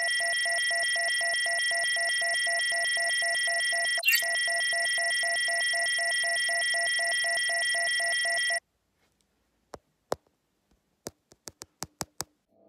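Electronic error tone: several steady high-pitched tones over a rapid, even pulsing buzz, with a brief glitch about four seconds in, marking a failed video call. It cuts off suddenly about two-thirds of the way through, and a scatter of sharp clicks follows near the end.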